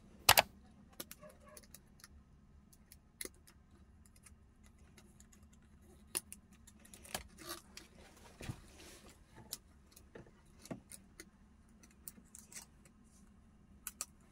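Scattered light clicks and brief rustling from a truck instrument cluster circuit board being handled while the LCD ribbon cable is pressed into its connector, with one sharp click near the start.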